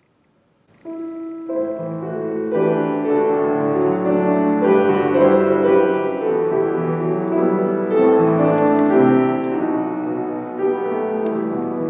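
Keyboard instrument begins playing a few moments after near silence, with chords of held notes at a slow, steady pace. It is the instrumental introduction to the responsorial psalm, which follows the first reading.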